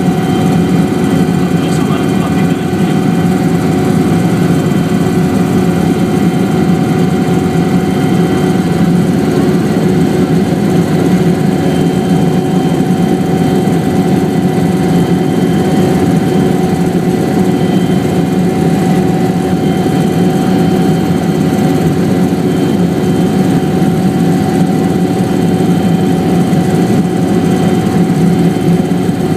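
Helicopter in steady flight: continuous engine and rotor noise with a constant whine running through it.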